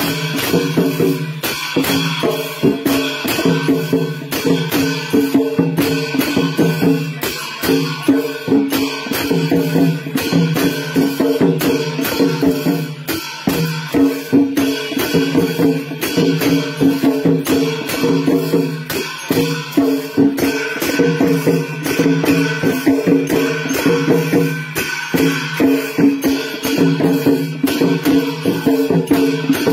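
Live Lakhe dance accompaniment: traditional Newar drums and cymbals playing a dense, steady rhythm without a break.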